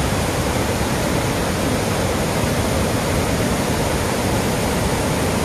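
Steady rushing of a waterfall, water pouring over rocks in an even, unbroken wash of noise.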